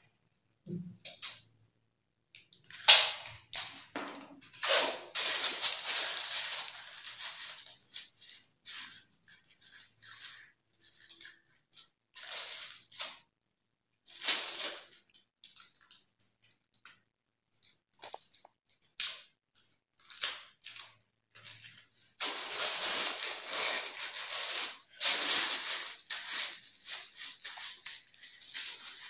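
A thin kite covering rustling and crinkling in irregular bursts as the torn kite is handled and checked for tears, with short quiet gaps between handlings and a longer stretch of crinkling near the end.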